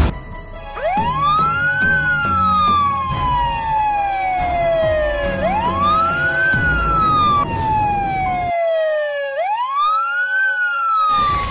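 Ambulance siren wailing in three cycles, each climbing quickly in about a second and then falling slowly over about three seconds. Underneath is the low rumble of the moving vehicle, which drops out shortly before the end.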